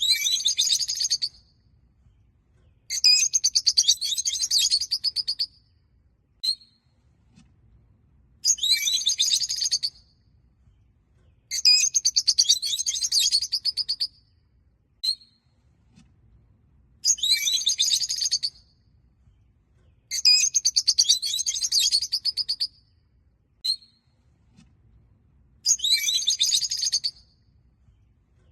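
Rosy-faced (peach-faced) lovebirds chirping: bursts of rapid, high, shrill chirps lasting a couple of seconds each, coming about every three seconds, with a single short chirp now and then in the pauses.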